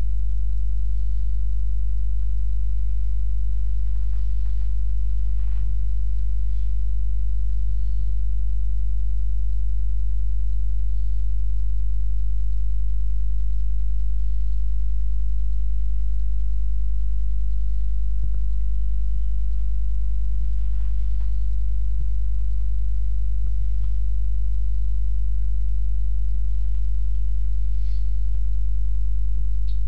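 Loud steady electrical mains hum: a low buzz with its overtones that does not change, with a few faint ticks now and then.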